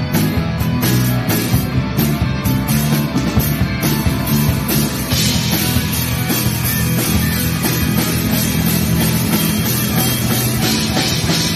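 Live rock band playing: electric guitars, bass guitar and drum kit, loud and dense, the sound getting brighter and fuller about halfway through.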